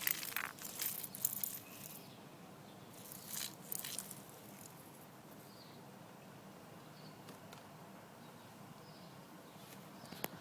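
A cat's hunting chatter at a bird: short bursts of hissy, rapid clicking in the first four seconds, then only a few faint, brief high chirps.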